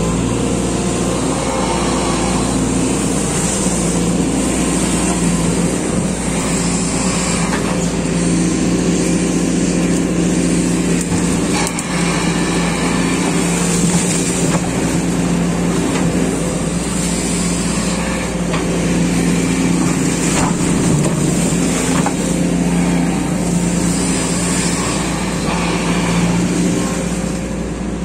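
SANY SY215C excavator's diesel engine running steadily under load while its hydraulics work the boom and bucket digging wet mud.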